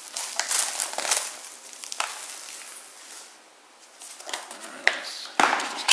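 Plastic shrink wrap being torn and peeled off a Blu-ray steelbook case, crinkling and crackling, with a brief lull about three seconds in, then more crinkling and a few sharp clicks near the end.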